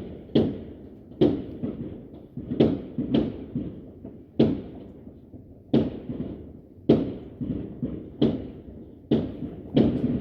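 Fireworks going off: a string of sharp bangs at uneven intervals, roughly one a second, each trailing off in a short echo.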